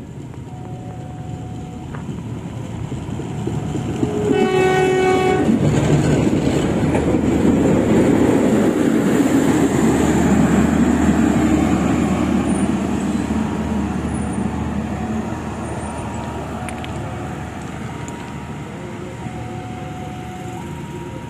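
Plasser & Theurer track maintenance machine sounding one horn blast of about a second, then passing close by with its engine and wheels on the rails; the noise rises to a peak and slowly fades as it moves away.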